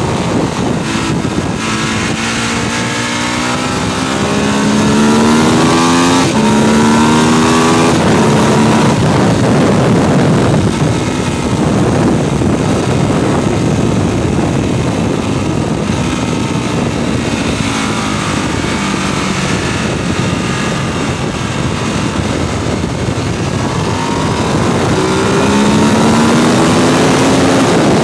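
Bimota DB7's Ducati 1098 L-twin engine accelerating hard, heard onboard. The note climbs, drops for an upshift about six seconds in and climbs again. Through the middle it is largely covered by wind rush at speed, and near the end it rises again in another pull.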